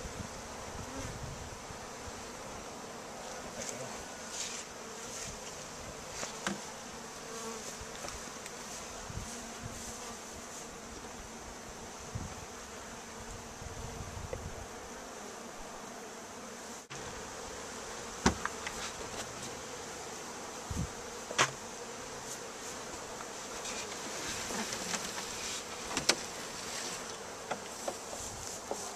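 Honey bees buzzing steadily, a disturbed colony being moved into a top bar hive. A few sharp knocks sound in the second half.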